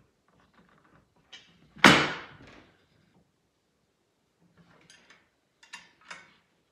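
Aluminium rails of a Festool router template being slid and knocked together on the workbench as it is set to size. There is one loud metallic clack about two seconds in, a little scraping later, and two lighter clicks near the end.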